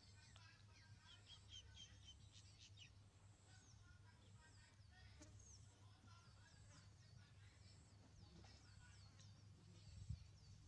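Faint bird chirps and short falling calls, many in a row, over a low steady rumble. A short high note repeats about once a second, and there is a low thump near the end.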